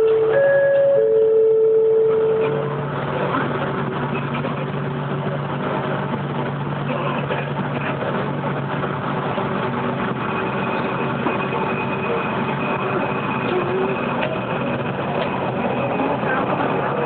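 Passenger train pulling out of a station, heard from on board. A loud two-pitch signal tone sounds for the first two seconds or so, then the train runs with a steady low hum, and a faint high whine joins about ten seconds in.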